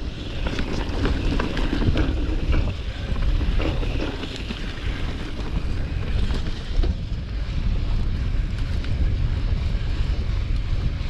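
Wind buffeting the microphone while riding a gravel bike, with scattered crackles and ticks from the tyres rolling over sand and gravel.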